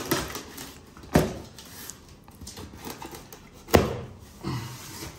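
A cardboard box being opened by hand: packing tape slit and torn, and the cardboard flaps scraped and pulled back. Two sharp knocks stand out, the first about a second in and the second about two and a half seconds later.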